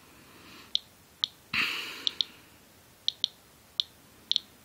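Medcom Inspector Geiger counter's audio clicker ticking at irregular intervals, about nine sharp clicks, some in close pairs, as its pancake Geiger-Müller tube counts radiation from the hood of a winter coat. The display shows around 200 counts per minute against the owner's household background of about 40, which he takes for something radioactive on the hood. A brief rush of noise comes about one and a half seconds in.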